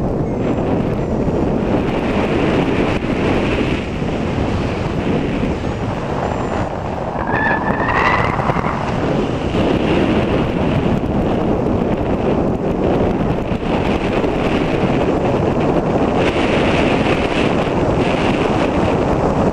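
Flight wind buffeting the microphone of a paraglider pilot's camera: a loud, steady rush. A short rising tone sounds about seven seconds in.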